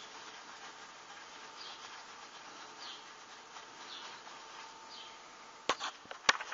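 Epoxy being stirred with a plastic stick in a small plastic cup: a faint, steady scraping with a light rasping stroke about once a second. Near the end come two sharp clicks, the second the louder.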